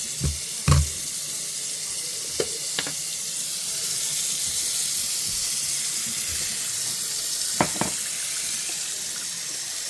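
Sink faucet running steadily, water rushing into the basin and down the drain to test the newly refitted drain tailpiece for leaks. A few short knocks sound over it, the loudest under a second in.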